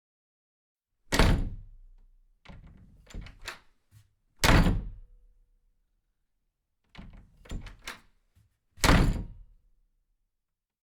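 Three heavy thumps, one about every three and a half seconds, each dying away over about a second, with lighter knocks and clatter between them.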